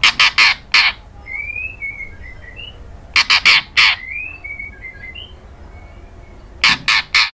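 White-rumped shama giving harsh, rasping calls in three quick clusters of three or four notes each, with soft chirps and short rising whistles between the clusters.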